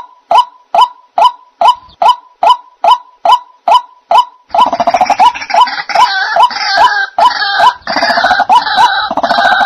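White-breasted waterhen (dahuk) calling: a steady series of short, evenly spaced 'kook' notes, about two and a half a second. About four and a half seconds in, a denser run of overlapping croaking calls joins in and carries on.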